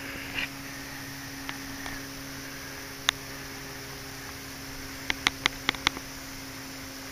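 Sharp clicks from handling the camera: a single click about three seconds in, then a quick run of five or six clicks a couple of seconds later. A steady low hum runs underneath.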